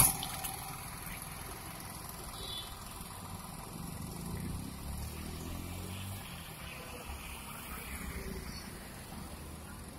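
Low steady rumble of a heavy potter's wheel turning while wet clay is thrown on it, swelling a little about four to six seconds in.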